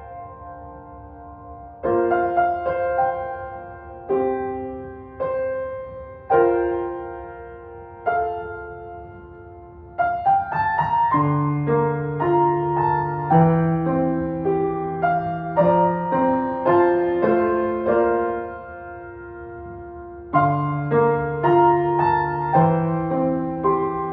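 Solo piano playing a gentle intermediate-level piece in short phrases of struck, fading notes. About eleven seconds in, lower bass notes join and the playing grows fuller.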